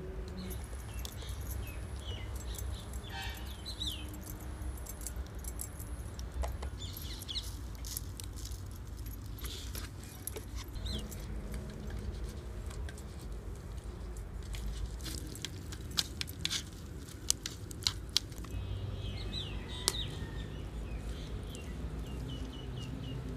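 Small metallic clicks and clinks of vegetables and fish being cut on a boti, a curved floor-mounted blade, scattered throughout, with a few louder clicks partway through. Birds chirp briefly several times over a low steady rumble.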